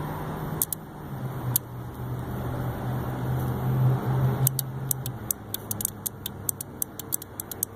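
Small 12-volt relay clicking as the truck's chassis computer parking-light output switches it: a few single clicks near the start, then a fast, uneven run of clicks from about four and a half seconds in. The clicks show that the computer's output can still work the relay. A steady low hum underneath drops away about five seconds in.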